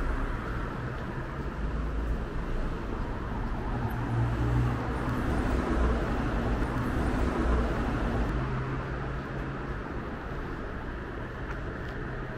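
Street traffic noise: a motor vehicle engine running and passing on the road, with a low hum. It is loudest in the middle and fades toward the end.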